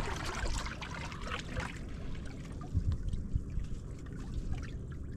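Shallow seawater lapping and trickling around a boat's stern and outboard lower unit, busiest in the first couple of seconds, over a steady low rumble.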